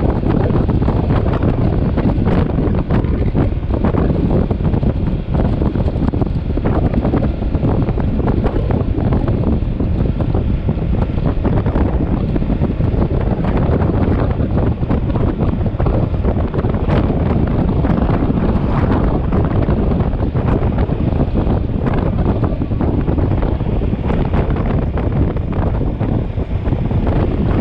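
Wind buffeting the microphone of a motorcycle at riding speed: a loud, steady rumble.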